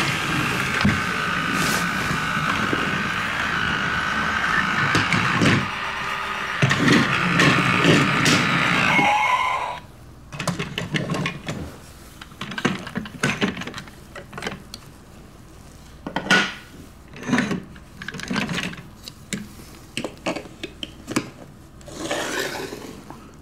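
Motorized LEGO toy train running on its track with a steady whir, cutting off about ten seconds in. Scattered clicks and knocks of plastic LEGO pieces being handled follow.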